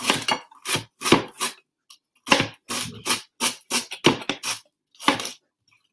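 Large knife slicing white cabbage thinly on a plastic chopping board: a run of quick chops, about three a second, with a short pause about two seconds in.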